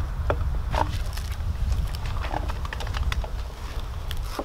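Scattered light knocks and clicks as a duct-taped, foam-insulated PVC pipe is handled and lifted, over a steady low rumble.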